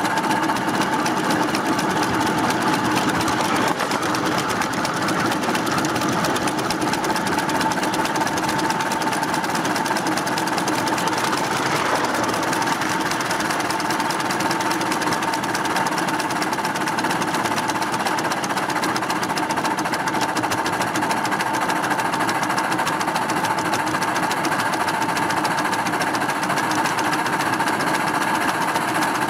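Coal-fired live-steam miniature Mogul locomotive running at speed, heard from on board: a fast, even mechanical clatter of exhaust beat and wheels on the rails that holds steady throughout, as it builds momentum for a gradient.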